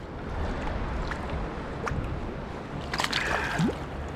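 Creek water sloshing and trickling, with a few small splashes, over a steady rush of flowing water.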